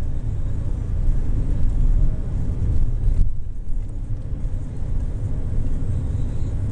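Car driving, heard from inside the cabin: a steady low rumble of engine and tyres on the road. The higher hiss drops away briefly about three seconds in.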